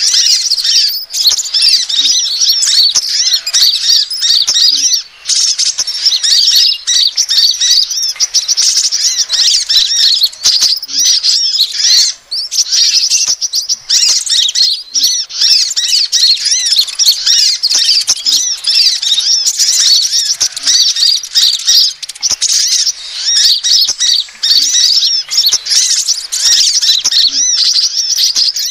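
Sunbird lure recording: a dense, continuous chorus of high-pitched chirps and twitters, many calls overlapping, played to draw kolibri ninja and sepah raja sunbirds.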